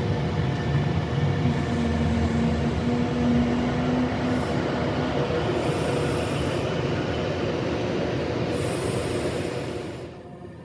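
A train running along the platform: a steady rumble with a humming tone and a few brief high hisses. The sound drops away suddenly near the end.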